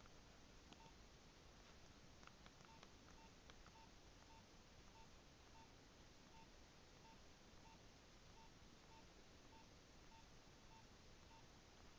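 Near silence: a Nokia 7200 mobile phone gives a faint short beep at one steady pitch, repeating evenly a little under twice a second, over a low hiss.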